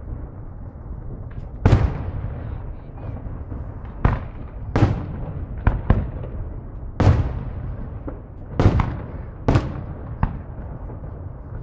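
Aerial firework shells bursting, about nine sharp bangs at uneven intervals of roughly a second, each followed by a short echo, with a low rumble between them.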